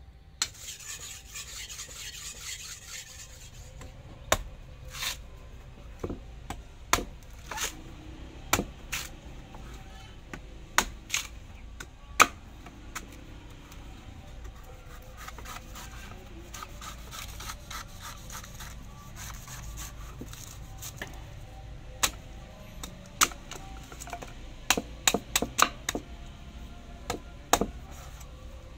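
Hand-forged mini machete, made from leaf-spring steel, chopping into the husk of a green coconut on a wooden chopping block. The chops come as irregular sharp strikes, with a quick run of them near the end.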